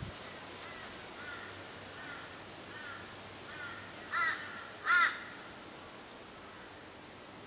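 A crow cawing. Faint arched calls repeat about every 0.7 s, then two loud harsh caws come about four and five seconds in.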